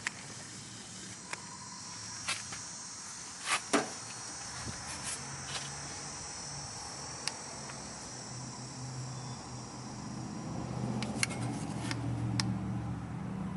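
Crickets chirping steadily, with a few sharp clicks and taps of hand tools on metal scattered through it. A low rumble builds over the last few seconds.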